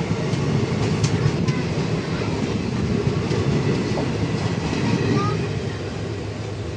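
Indian Railways passenger coaches passing close by on the adjacent track, heard from a train doorway: a steady loud rumble with wheel clatter, easing a little near the end as the last coach goes by.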